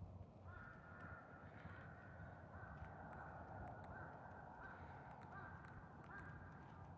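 Crows cawing, faint: a string of calls one after another.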